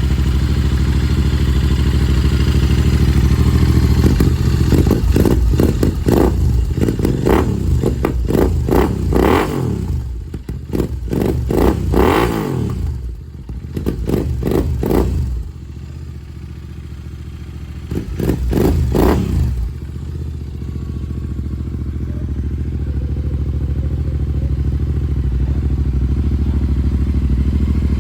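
Royal Enfield GT650's 648 cc parallel-twin engine idling and revved in a run of throttle blips, each rise and fall of revs following quickly on the last, then settling back to a steady idle for the last several seconds.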